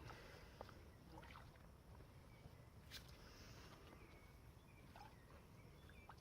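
Near silence: a faint low rumble with scattered faint small ticks and short chirps.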